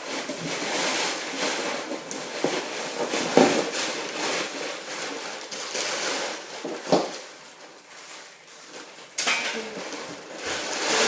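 Packaging and parts from a BMX bike box being handled and unpacked: continuous rustling of wrapping with several sharp knocks and clatters, a quieter lull around the eighth second, then louder rustling again just after nine seconds.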